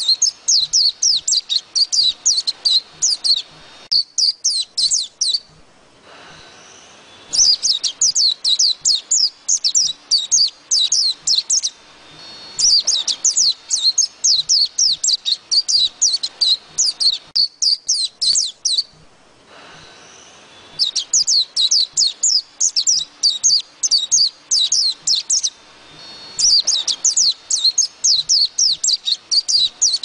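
White-eye song: long runs of rapid, high twittering chirps lasting several seconds each, separated by short pauses.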